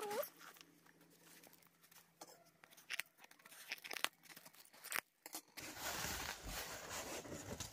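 Corrugated cardboard wrapping and shredded paper packing filler rustling and crinkling as hands dig into a box and pull the cardboard away from the plants. There are faint, scattered rustles and scrapes, then a steadier hiss near the end.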